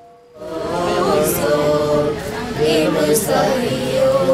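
A group of voices singing without instruments, coming in about half a second in as a faint held note from the music before dies away.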